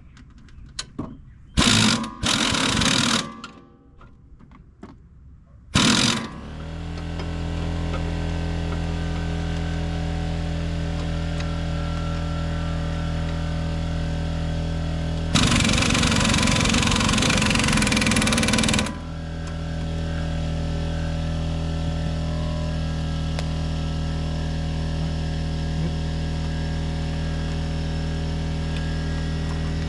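Several short bursts from a power tool at the start. A few seconds in, a steady machine drone builds up and keeps running, with a louder burst of about three seconds in the middle.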